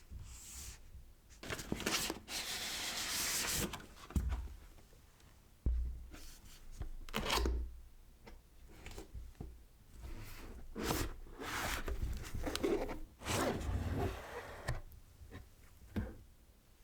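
Keyboard box packaging being handled: cardboard and plastic rubbing and sliding in a series of irregular swishes, with a sudden soft thump a little under six seconds in.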